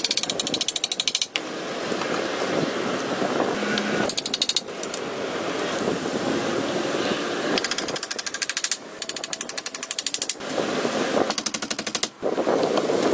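Hatchet chopping into wooden poles: fast, evenly repeated strikes, many a second, in several runs broken by short gaps.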